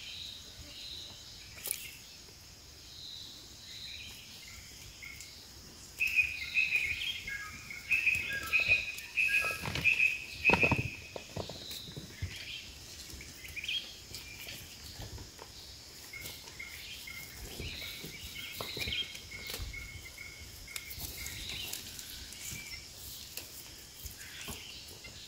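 Outdoor forest ambience: a steady high insect drone throughout, with a bird calling in a run of short repeated notes for several seconds in the middle, the loudest part. Scattered light clicks and knocks run through it.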